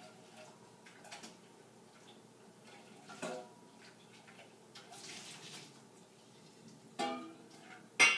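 Dishes knocking together in a kitchen sink during hand washing: three clinks, about three seconds in, about seven seconds in and the loudest near the end, which rings on briefly like glass or china. Water runs faintly between them.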